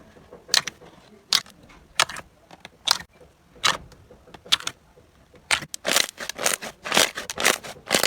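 Slime being played with by hand, making short sticky pops and crackles: spaced out at first, then coming quickly one after another for the last few seconds.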